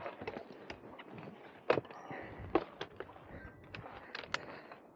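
Scattered clicks and knocks of camera gear being handled and set up, with two louder knocks near the middle, over a faint outdoor hiss.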